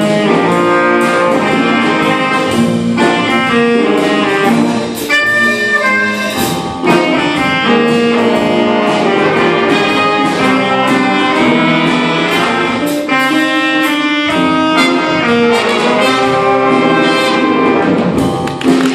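A student jazz big band playing: a saxophone section, trumpets and trombones over drum kit and guitar, with a short accented hit near the end.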